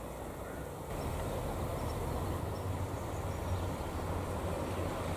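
Low, steady vehicle rumble that grows louder about a second in and holds.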